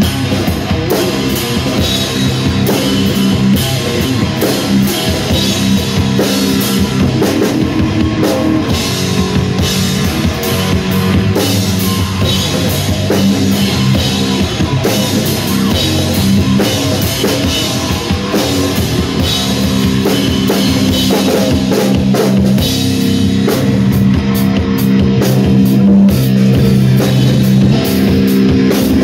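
Electric guitar and drum kit jamming live in a southern-style metal groove: held, ringing guitar chords and riffs over steady, busy drum and cymbal hits.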